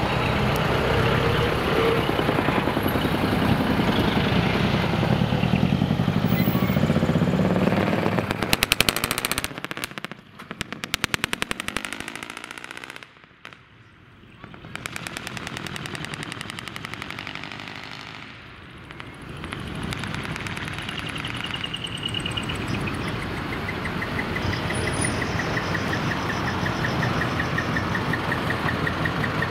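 Large diesel trucks with split-manifold ('mani-wari') exhausts driving off, engines running in a rapid, even pulsing that fades to a lull about 13 seconds in and builds again. A high repeating beep joins in near the end.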